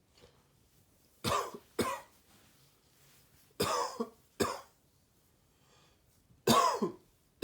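A man coughing in three bouts of two sharp coughs each, a couple of seconds apart. He puts the coughing down to sub-zero cold air, not a cold.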